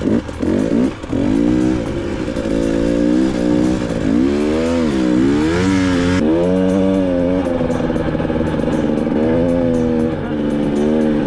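KTM EXC 250 enduro motorcycle engine revving under throttle while riding through sand, its pitch rising and falling with the throttle, dipping and then climbing again about halfway through.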